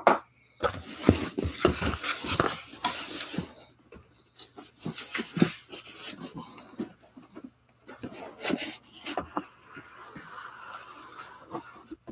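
Cardboard shipping box being opened and pulled off the boxed figure inside: rustling, scraping cardboard in bursts, with scattered knocks and taps.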